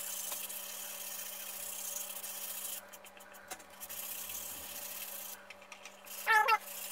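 Light hand sanding of birch plywood with a 240-grit abrasive pad: a soft, steady rasping rub that stops briefly twice. A short voice sound comes near the end.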